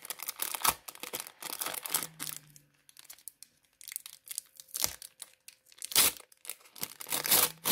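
A handmade parchment-paper bag being handled and opened: crinkling and rustling in uneven spurts, with a pause of about a second near the middle and loud crackles near the end.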